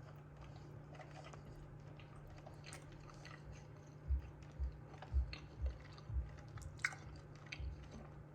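A person chewing a bite of food close to the microphone, most likely the oat-flake-crusted baked chicken breast: quiet at first, then from about halfway soft chewing thuds roughly twice a second with small crisp crunches.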